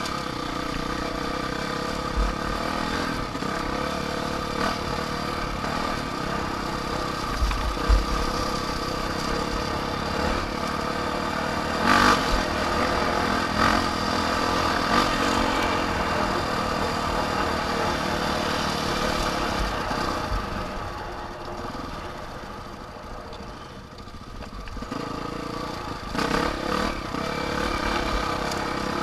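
Off-road vehicle engine running steadily on the move, with a few sharp knocks over the terrain. The engine eases off about twenty seconds in and picks up again near the end.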